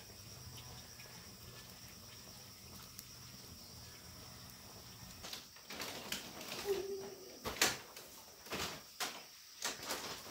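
Knocks, bumps and rustles of people shifting about on a woven mat over a bamboo-slat sleeping platform, starting about five seconds in after a faint steady background. A brief high sound comes about seven seconds in.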